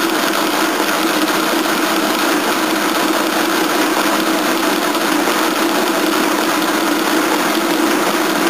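Friden SW10 electro-mechanical calculator running through a long multiplication: its electric motor and geared mechanism run steadily while the carriage shifts along step by step. The motor's centrifugal governor is set slow to spare the mechanism.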